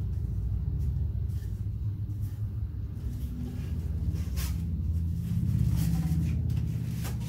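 Cardboard mailing tube being opened and a rolled paper poster slid out of it, heard as a few short scrapes and clicks over a steady low rumble that is the loudest sound throughout.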